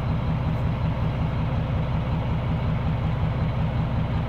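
Dump truck's engine idling steadily, a low, evenly pulsing rumble heard from inside the cab.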